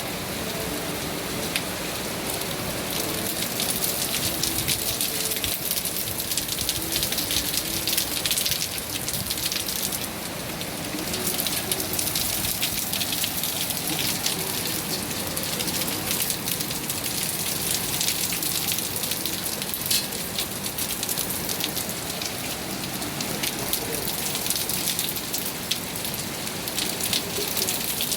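Steady rain falling, a dense hiss with many individual drops ticking close by.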